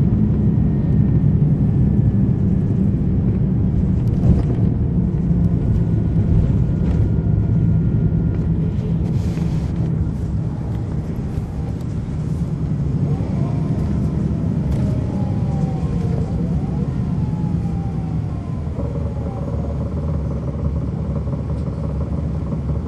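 Cummins ISL9 diesel engine of a NABI 40-SFW transit bus heard from on board, running with a steady low drone. About two thirds of the way through, a whine rises and falls several times, and near the end a steady higher tone sets in.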